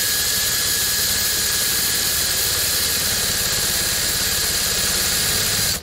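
Cordless drill motor running at a steady speed with a high whine, spinning a self-tapping screw against the trailer's sidewall. The screw only marks the surface and does not draw in, because not enough pressure can be put on it from the ladder.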